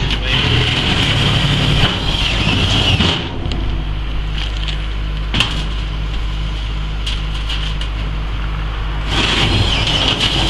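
An engine running steadily, a constant low hum. A hiss comes over it for the first three seconds and again near the end, with a sharp knock about five seconds in.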